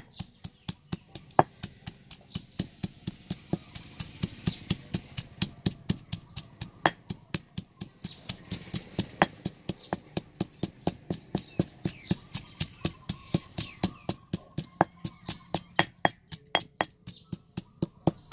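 Stone pestle pounding fresh red chillies in a heavy stone mortar: a steady run of knocks at about four strokes a second.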